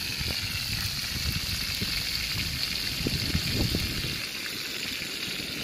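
Whole spiny lobsters frying in oil in a pan over a wood fire: a steady sizzle, with an uneven low rumble underneath.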